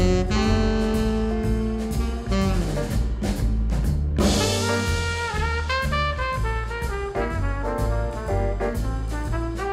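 Background music: upbeat jazz with brass and a drum kit, with a cymbal-like crash about four seconds in.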